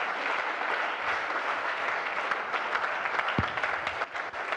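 Audience applauding, a steady patter of many hands clapping, with one dull thump about three and a half seconds in.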